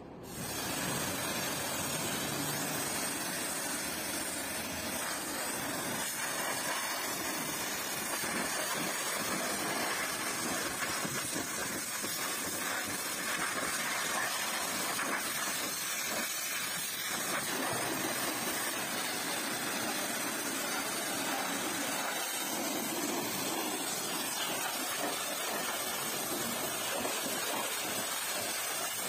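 Pressure-washer jet spraying water onto a car's painted body and rinsing off soap foam, a steady hiss.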